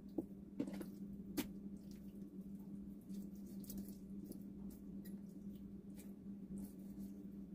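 Kitchen knife cutting raw chicken thighs on a cutting board: soft wet squishing cuts and sharp taps of the blade against the board, the loudest tap about a second and a half in. A steady low hum runs underneath.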